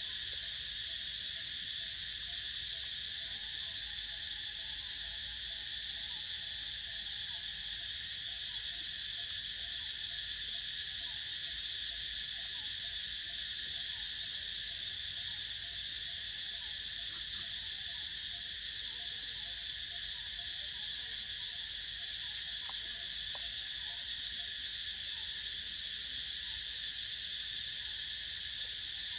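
Steady, unbroken chorus of insects with a high, even drone.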